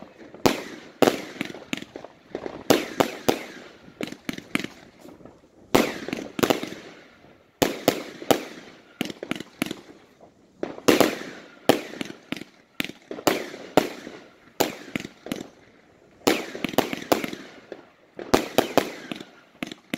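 Fireworks shells launching from the ground and bursting overhead: sharp bangs coming in quick clusters throughout, each trailing into a short echo.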